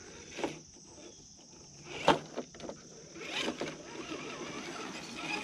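A radio-controlled scale crawler truck (RC4WD C2X) working over rock: its tires and chassis give a few sharp knocks and scrapes against the stone, the loudest about two seconds in, over a steady high hiss.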